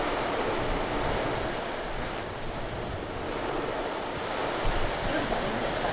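Strong storm wind gusting across the microphone amid heavy rain: a continuous rushing noise with an uneven low rumble.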